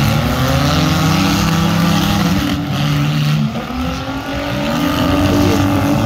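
Several compact-car demolition-derby engines running and revving at once, their pitches rising and falling over each other.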